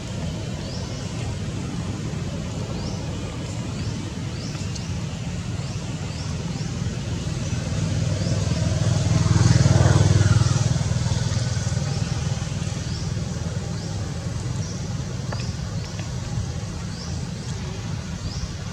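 A motor vehicle passing by over a steady low rumble: its sound builds, is loudest about halfway through, then fades away. Short high chirps repeat all through.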